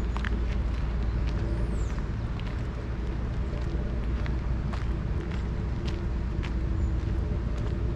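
Steady low outdoor rumble with faint scattered ticks, and a brief high chirp about two seconds in.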